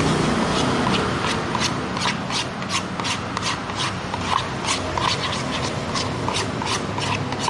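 Spoon stirring a sticky glue-and-liquid-soap slime mixture in a container, with wet clicking and scraping about three times a second.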